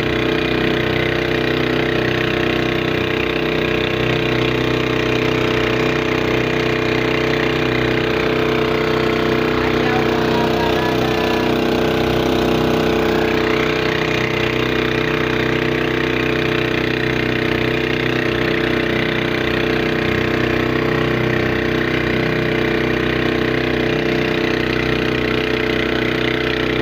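A boat's engine running steadily at an even pitch, with no change in speed.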